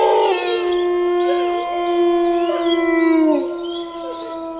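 A chorus of wolf howls: one long, steady howl that drops in pitch near the end, with several other howls sliding up and down over it.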